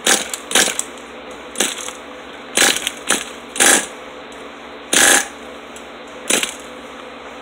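Small nitro engine of an RC10GT truck being pull-started: about eight short, quick pulls of the recoil starter at irregular spacing, the engine turning over without catching.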